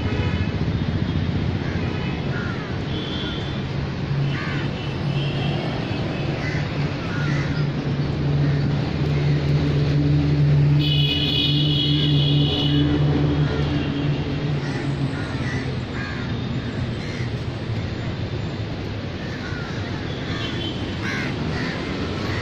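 Outdoor city ambience: a steady low traffic hum with crows cawing now and then. A high steady tone lasts about two seconds, about eleven seconds in.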